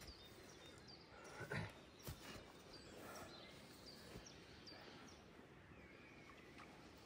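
Near silence: faint outdoor background with a few soft bird chirps, and a couple of soft thumps about one and a half to two seconds in.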